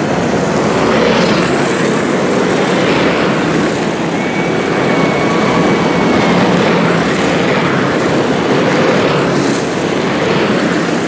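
A pack of dirt-track racing karts running flat out, their small single-cylinder Predator engines making a loud, steady buzz that swells as karts come past.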